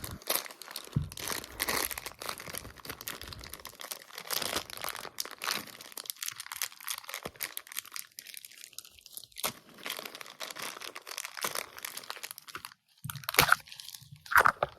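Plastic packaging crinkling and tearing as small bags of toy parts are opened by hand, with a run of sharper, louder crackles near the end.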